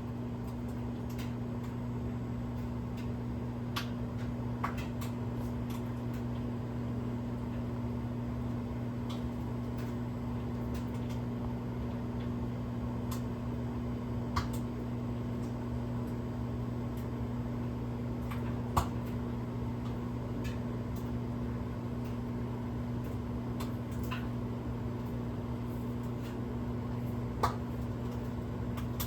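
Microwave oven running with a steady low hum while oil heating inside it pops and spatters in sharp, irregular clicks, a few of them louder than the rest.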